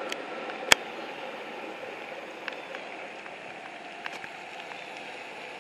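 Departing Metra commuter train receding down the track: a steady rushing noise that dies away. One sharp click about a second in, and a few faint ticks later.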